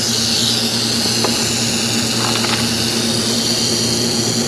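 Steady hum of a pool pump's electric motor, with an agitated rattlesnake's dry, high-pitched rattle buzzing continuously over it.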